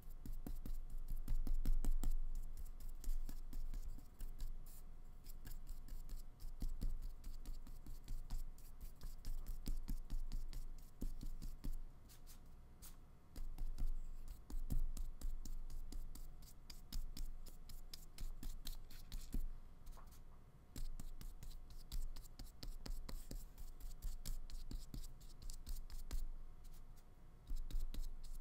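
Flat paintbrush working acrylic paint: bristles scratching and scrubbing across paper and the palette in quick strokes, with short pauses.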